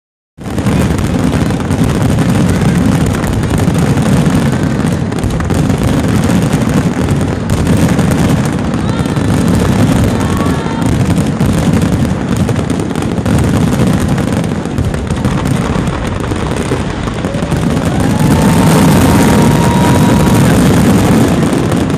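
Fireworks display: a dense, continuous barrage of shell bursts and crackle, heavy in the low range, with a high whistle rising slightly near the end.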